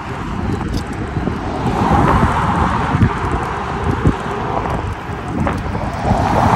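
Wind buffeting the microphone of a camera on a moving e-bike: a dense, uneven rumble that swells about two seconds in and again near the end.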